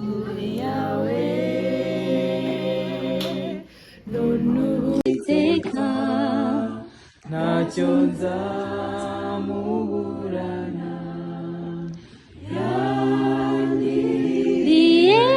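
Small vocal group singing a cappella in harmony: held chords sung in phrases, with short breaks between phrases about every three to four seconds.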